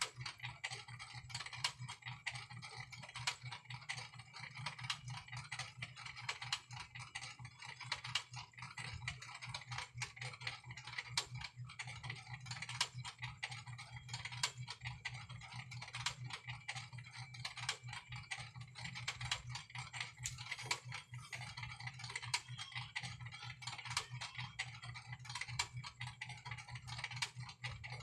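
Rapid, irregular light clicking and ticking over a steady low hum.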